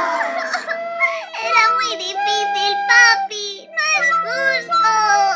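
A falling-pitch 'fail' sound effect fades out, then sad music with held low notes plays under a high, childlike cartoon voice crying and whimpering without words.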